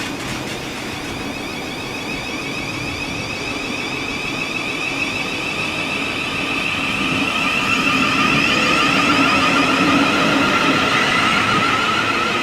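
Electric train running through with a whine of several wavering tones over a low rumble, growing louder to about ten seconds in and easing slightly near the end.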